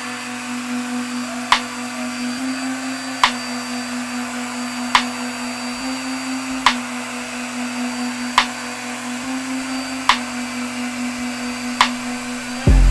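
Handheld electric air pump running with a steady hum as it inflates a vinyl air sofa bed. A sharp click comes about every second and a half to two seconds, and a loud low thump starts right at the end.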